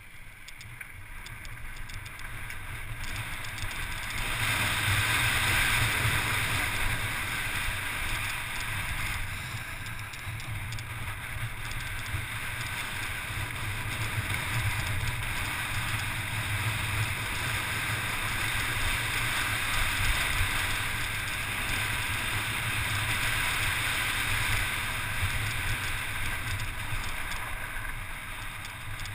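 Wind rushing over the camera's microphone and tyres rolling and crunching over loose volcanic gravel during a fast mountain-bike descent, growing louder about four seconds in as speed picks up.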